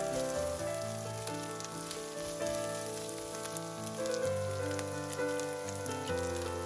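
Diced onion, carrot and grilled chicken sizzling in hot oil in a nonstick frying pan as they are stir-fried, over background music.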